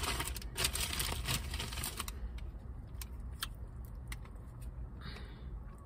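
Crunching of spicy Doritos tortilla chips being chewed: dense crunches over the first two seconds, thinning to scattered single crunches.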